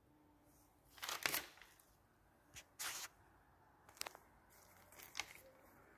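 Paper pages of a spiral-bound notebook being handled and turned: a series of short, faint rustles, the loudest about a second in.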